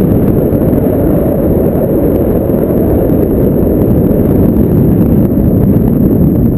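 Wind buffeting the microphone: a loud, steady, low rumble with no clear tone in it.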